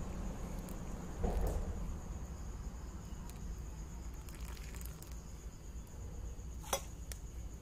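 Hot water poured in a thin stream from a gooseneck kettle into a glass of tubruk coffee, over a steady high chirring of crickets and a low rumble. A sharp click near the end.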